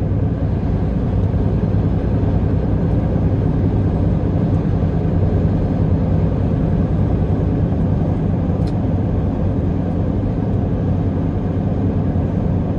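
Semi truck's diesel engine and road noise heard from inside the cab while cruising at steady speed: a constant low drone.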